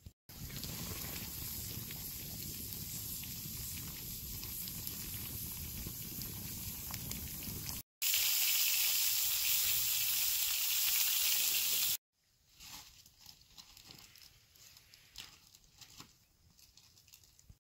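Three short pieces of sound in a row: a steady noise, then meat sizzling loudly in a pan over a campfire for about four seconds, then quieter irregular knocks and rustles.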